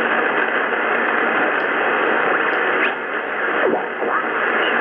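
Drake R77 HF receiver's speaker hissing with band noise as its tuning knob is turned, with a few brief whistles sliding in pitch in the second half as signals are tuned past.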